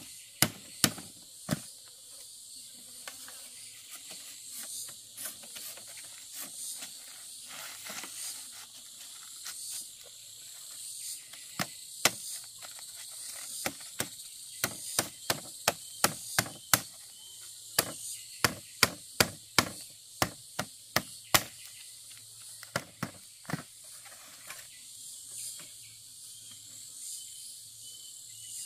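Sharp knocks of a machete blade striking split bamboo strips on the ground, scattered at first, then in quick runs of blows about halfway through. A steady high drone of insects runs underneath.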